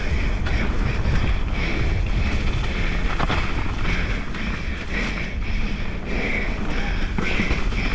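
Wind buffeting a GoPro microphone at speed on a mountain bike descent, over the rumble of tyres running on a dirt trail, with a sharp knock about three seconds in.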